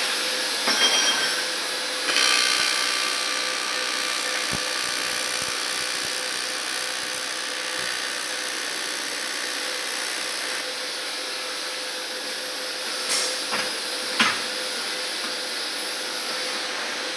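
Aluminium welding in progress: a steady, even hissing noise with no pauses, broken by two brief knocks about thirteen and fourteen seconds in.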